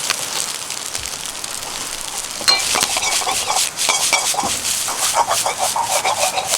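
Fried rice sizzling in a Chinese wok over a campfire. About two and a half seconds in, rapid scraping and clattering begins as the rice is stirred and tossed against the metal wok.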